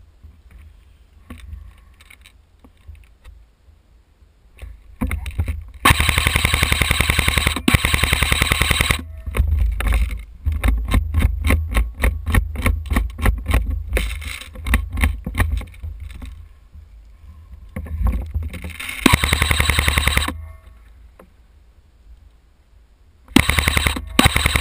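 Airsoft guns firing in rapid automatic bursts. A long burst starts about five seconds in and runs into a fast string of evenly spaced shots. Shorter bursts follow near the middle and again near the end.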